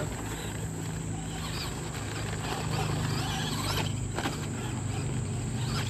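Traxxas Slash 2WD RC short-course truck driving on a dirt track: electric motor running and tyres scrabbling on loose dirt, with sharp knocks about four seconds in as it lands off a jump.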